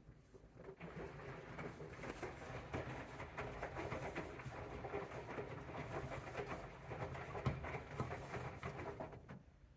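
AEG washing machine drum turning during a 95° cotton wash, wet laundry tumbling inside it. It starts about a second in and stops shortly before the end as the drum pauses between turns.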